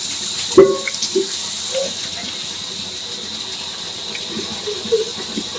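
Steady outdoor background hiss, with one short sharp sound a little over half a second in and a few faint brief noises after.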